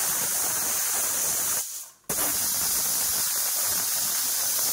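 Aluminium pressure cooker venting steam through its weighted valve: a steady, loud hiss, the cooker's "whistle" that signals it has come up to pressure. It breaks off for a moment about two seconds in, then resumes.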